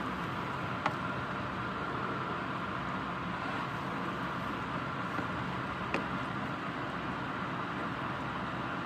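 Steady rain falling during a thunderstorm, an even hiss with two small sharp taps, one about a second in and one about six seconds in.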